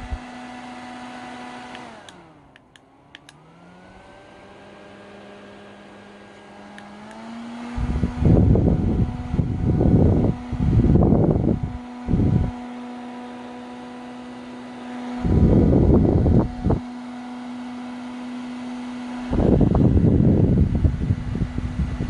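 Airmade iFAN handheld fan running with a steady motor-and-blade hum; about two seconds in it slows and drops in pitch, then speeds back up in steps over the next few seconds. From about eight seconds in, loud rumbling gusts of its airflow buffet the microphone several times, the loudest sound present.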